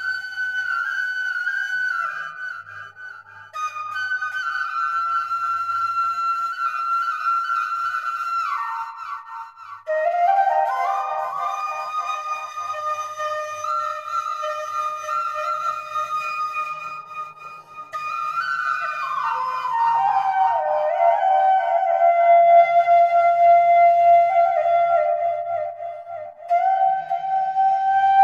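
Flute playing a slow melody of held notes that slide from one to the next, in phrases separated by short pauses.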